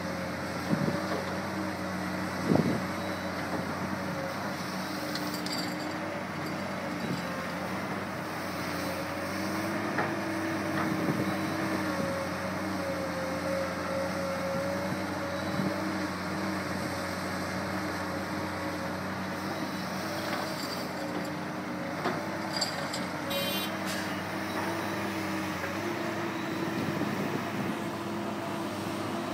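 Komatsu PC200-8 excavator's six-cylinder diesel engine running steadily, its pitch rising and falling slightly as the hydraulics take load. Two sharp knocks come in the first few seconds, and a brief shrill sound is heard near the end.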